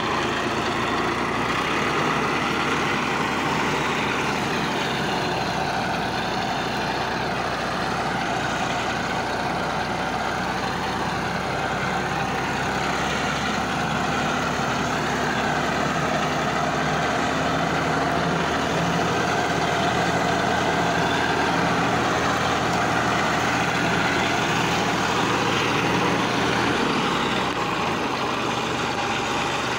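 Massey Ferguson 1035 DI tractor's three-cylinder diesel engine running steadily as the tractor is driven slowly with a trailer hitched behind.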